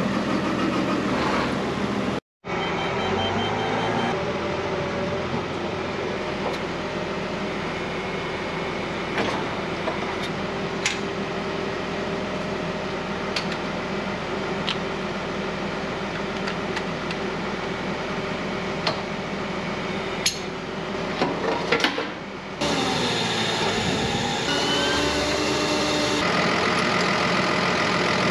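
Tractor engine idling steadily, with scattered sharp metallic clinks and knocks as a mower conditioner is hitched to the tractor's three-point linkage. The engine note changes near the end.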